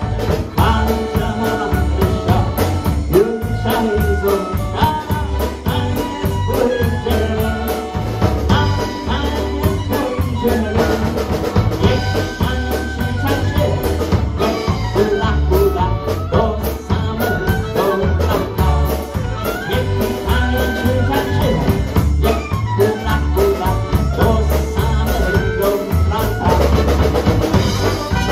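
Live dance band playing with drum kit, guitar, trumpet and accordion, over a steady beat.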